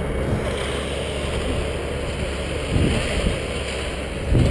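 A vehicle engine runs steadily under wind buffeting the microphone, with two dull thumps, one before and one near the end.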